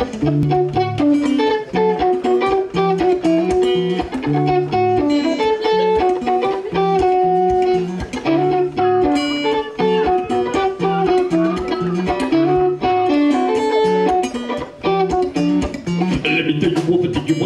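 Live folk band playing: acoustic guitars picked and strummed over a steady drum beat, with a plucked melody and bass line repeating in a regular pattern.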